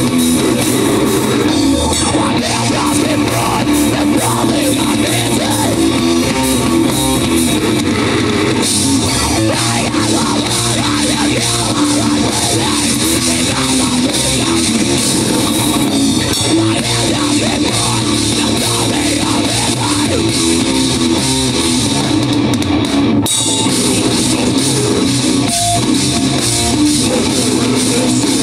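Live rock band playing an instrumental stretch: distorted electric guitars over a driving drum kit, steady and loud, with a short break about 23 seconds in.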